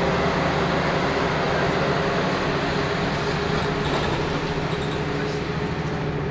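Interior of a Jelcz 120M/3 city bus under way: its WSK Mielec 11/300/1 diesel engine running steadily under a haze of road and cabin noise.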